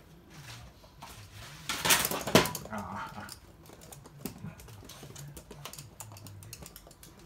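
Toy poodles' claws clicking and tapping on a hard laminate floor, with a louder burst of clattering noise about two seconds in.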